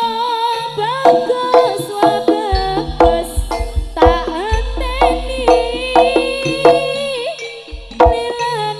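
Traditional East Javanese music accompanying a barong dance, played loud: a steady pattern of drum strokes under a wavering, ornamented high melody line, with deep bass notes coming in a few seconds in.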